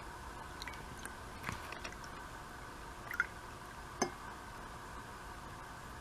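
A few faint clicks and light knocks of kitchen items being handled while milk is measured, over a steady low room hum.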